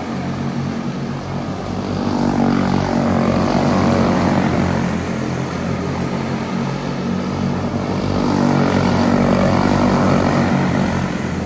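A pack of quarter midget race cars running flat out. Their single-cylinder Briggs & Stratton Animal engines make a buzzing, shifting drone that swells louder as the pack comes by, once in the first half and again near the end.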